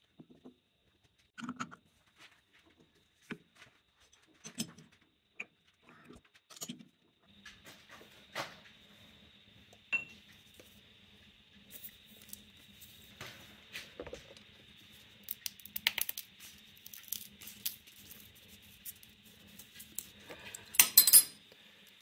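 Metal tools and parts being handled on a metal lathe: scattered clinks, taps and knocks, with a louder clatter about a second before the end. From about seven seconds in a faint steady hum runs underneath.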